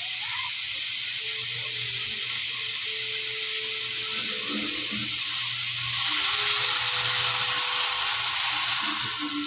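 Sliced green papaya and dried shrimp sizzling in a hot wok, a steady hiss. About six seconds in the sizzle grows louder as coconut milk is poured into the hot pan.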